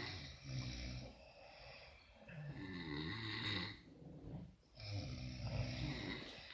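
Sleeping person snoring: three long snores about two seconds apart.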